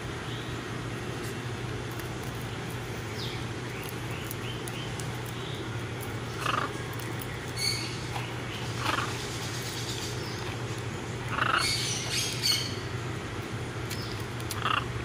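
Blue-and-yellow macaws giving several short calls, starting about halfway through and loudest in a quick cluster about three quarters of the way in, over a steady low hum.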